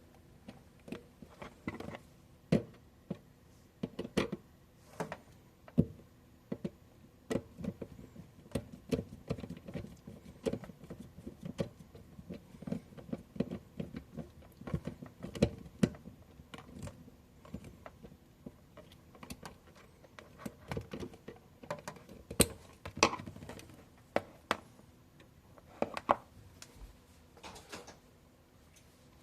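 Hands handling a microwave oven and its packing: irregular clicks, taps and light rustles, with a few sharper knocks.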